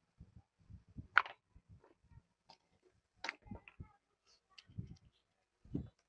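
Scattered small clicks and knocks of hands working on a rechargeable charger fan's parts and wiring as it is taken apart. The sharpest click comes about a second in.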